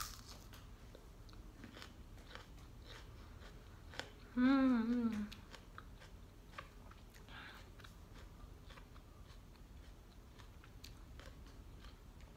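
Bites of raw onion being chewed, with a scatter of small crunches. About four and a half seconds in, a short wavering vocal sound from the eater, the loudest thing heard.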